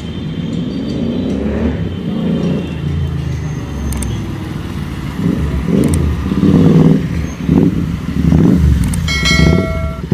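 Royal Enfield Interceptor 650's parallel-twin engine with an aftermarket exhaust, running at idle and then revved in a series of short blips over the second half. A horn sounds for about a second near the end.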